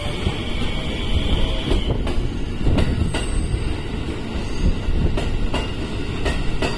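Electric commuter train rolling slowly past on the adjacent track: a steady low rumble of wheels on rail with sharp clacks as wheels cross rail joints, several in an irregular beat, and a high thin whine that stops after about two seconds.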